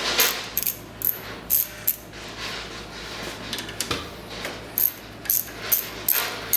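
Sharp, irregular metallic clicks and clinks of a hand wrench working the bolts and parts of a primer valve held in a vise, one to three a second.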